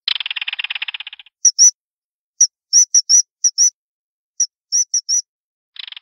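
Animal calls: a rapid rattling trill about a second long, then about a dozen short, shrill, high whistles in uneven groups. The rattle starts again near the end.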